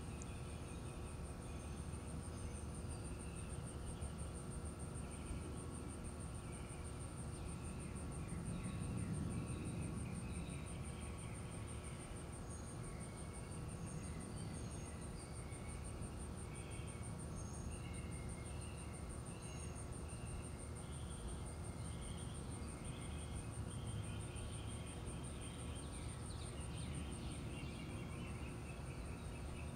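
Outdoor backyard ambience: a steady, high, pulsing insect trill with scattered short bird chirps over a low rumble that swells briefly about nine seconds in.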